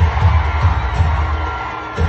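Loud dance music from a big outdoor sound system, with a heavy, pounding bass beat, over a large crowd cheering and shouting.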